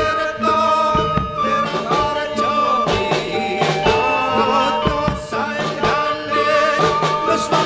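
Live Javanese gamelan music accompanying a kuda lumping horse dance: repeated drum strokes and metal percussion under held, wavering melodic notes that sound like a singer's voice.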